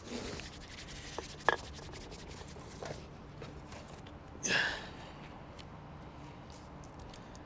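Beer cans being handled: rustling with a few sharp clicks and taps, the loudest about one and a half seconds in, and one short hiss about four and a half seconds in.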